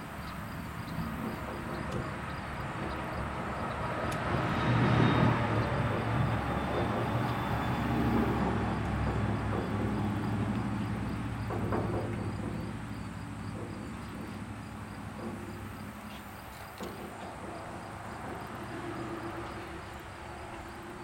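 Low engine rumble of a passing vehicle, swelling over a few seconds and then slowly fading away, with a few faint knocks.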